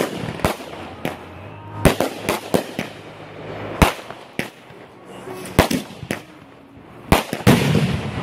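Fireworks going off in an irregular series of sharp bangs, about fifteen in eight seconds, some following close on one another.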